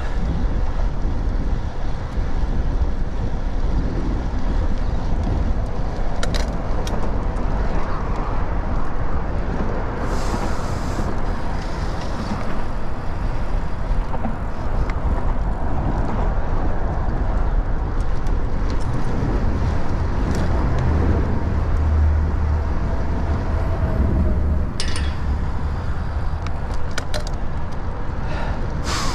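Road traffic passing a moving bicycle: cars going by over a steady low rumble, with a brief hiss about ten seconds in and a heavier low rumble from a passing vehicle a little past two-thirds of the way through.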